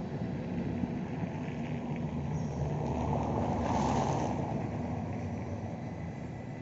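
A České dráhy Siemens Vectron electric locomotive hauling passenger coaches passes by with a steady rolling rumble and low hum. It swells to its loudest about four seconds in, with a rushing hiss, then eases off.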